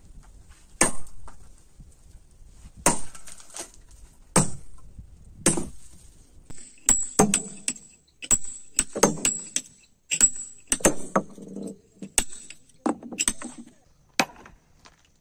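Hammer strikes on steel wedges set in drilled holes in granite, splitting the block. Each blow is a sharp metallic clink with a brief ring. The blows come singly, a second or two apart, at first, then in quicker runs through the middle.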